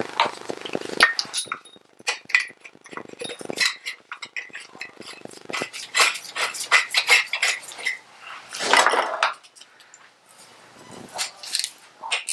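Small metal hand tools and sockets clinking and clicking while being handled during reassembly of a Harley-Davidson primary, with a quick run of clicks in the middle and a longer, louder burst near nine seconds in.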